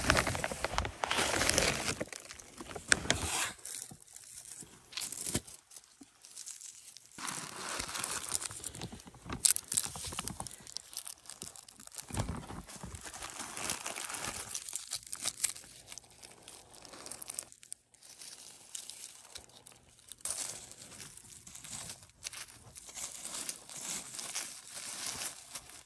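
Plastic fertilizer bag crinkling and rustling as a gloved hand scoops starter fertilizer out of it, in irregular bursts, along with hands rustling in soil and dry leaves at the planting holes.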